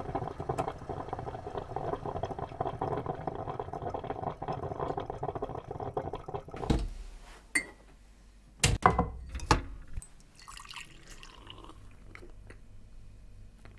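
Technivorm Moccamaster drip coffee maker gurgling and bubbling as it brews, which cuts off suddenly about six and a half seconds in. Three short knocks follow within the next few seconds.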